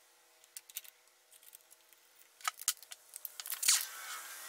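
Light metallic clicks and clinks of a scooter's CVT variator parts being fitted by hand onto the crankshaft. The clicks are sparse at first, with a few sharper ones in the second half.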